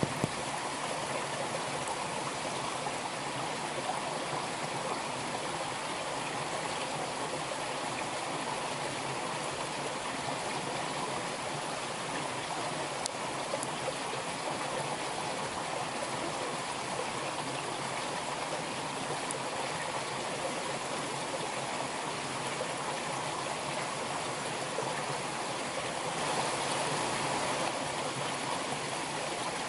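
Steady rushing of flowing water, like a stream, without pauses or rhythm, a little louder near the end.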